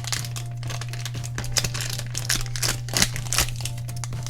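Plastic-foil Shopkins blind-bag packet crinkling and tearing as it is opened by hand, a quick string of short crackles.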